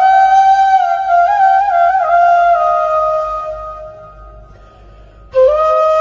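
Background music: a slow solo melody on a wind instrument, one note line stepping up and down, fading away about four seconds in, with a new phrase coming in suddenly near the end.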